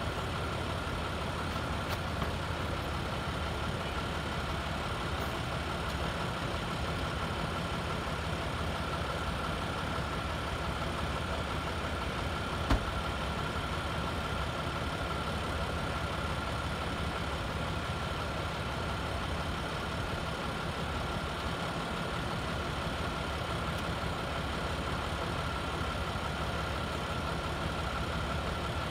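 Pickup truck engine idling steadily, with a thin steady high tone above it. A single sharp click comes about halfway through.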